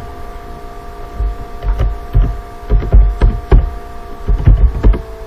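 Typing on a computer keyboard: a run of irregular keystrokes, each a sharp click with a low thud, starting about a second in, over a steady hum.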